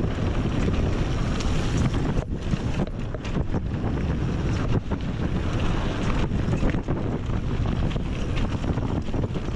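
Wind buffeting the microphone, a loud, steady rush heaviest in the low end, with a few brief dips.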